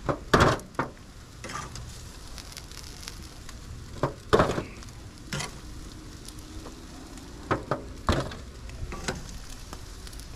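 Chicken leg quarters sizzling steadily on a charcoal grill grate over hot coals, with about nine sharp clicks and knocks scattered through it, the loudest about half a second and four seconds in.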